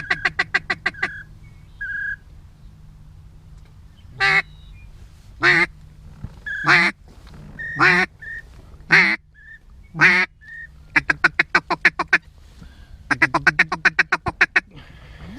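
Duck calling to lure in circling ducks. A quick string of quacks comes first, then six long, evenly spaced quacks, then two more fast strings near the end. Short high whistle notes are mixed in.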